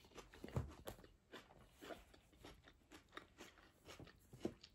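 Close-miked chewing of a mouthful of tuna pasta salad: soft, irregular wet clicks and crunches, several a second.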